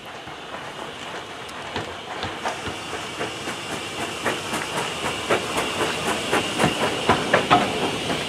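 Hunslet saddle tank steam locomotive running light past at low speed: a steady steam hiss under a clatter of clanking rods and wheels that grows louder as it approaches, loudest as it passes close by near the end.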